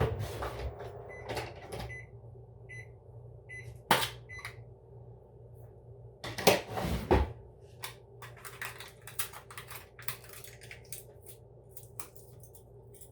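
Microwave oven beeping a few short high beeps over a steady low hum, then its door latch clicking and a couple of loud knocks as the door and plate are handled, followed by many light scattered clicks and taps of kitchen handling.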